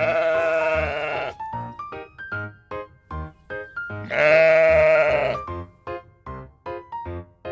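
Two long, wavering bleats from a sheep or goat, one at the start and one about four seconds in, over a plucked, bouncy children's music track.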